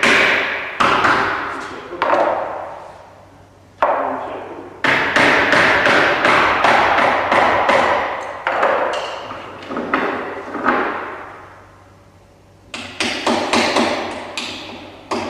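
Hammer blows on a timber boat frame: single strikes, then quick runs of several blows, each ringing on in an echoing hall.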